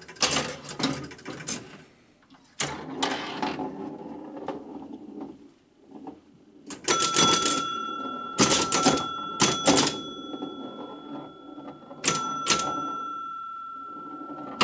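Gottlieb 1969 Airport electromechanical pinball machine in play: bursts of mechanical clacking from its relays, coils and score reels. A chime rings out about seven seconds in and again about twelve seconds in, its tone hanging on and slowly fading.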